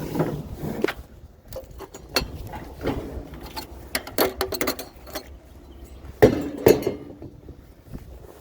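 Irregular metallic clanks and knocks of scrap being handled, with a louder pair of bangs about six seconds in.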